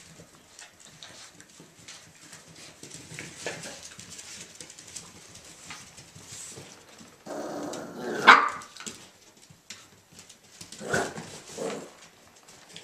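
Irish Jack Russell Terrier puppies play-fighting, their paws scrabbling on the wooden floor. A burst of puppy barking rises to a sharp yelp about eight seconds in, and two more yaps come around eleven seconds.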